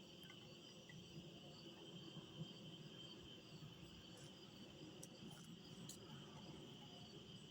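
Faint nighttime insect chorus: a steady, high, unbroken drone, with a few faint ticks partway through.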